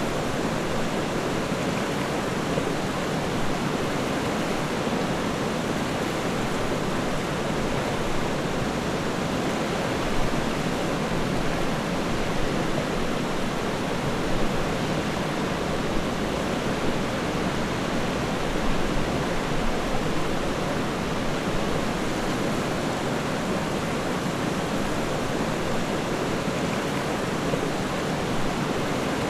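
River water flowing and babbling steadily, an even rushing with small splashy ripples.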